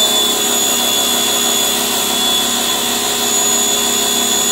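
Pressure washer motor running steadily with a high whine while the soap cannon sprays foam with a dense hiss.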